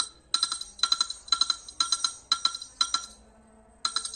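Nothing Phone ringtone playing: short ringing chime-like notes repeating about twice a second, breaking off about three seconds in and starting again just before the end.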